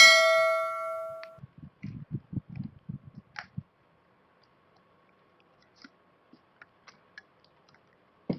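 A metallic clink that rings on in several clear tones and fades over about a second and a half, followed by a quick run of low knocks and then a few scattered light clicks.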